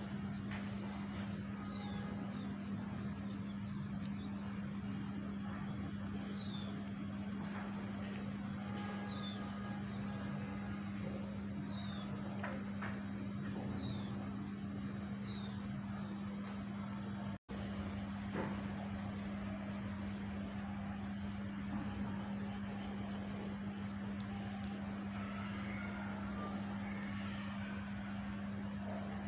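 Steady low mechanical hum over an even outdoor background noise, with a few short, high chirps falling in pitch in the first half. The sound drops out for an instant a little past the middle.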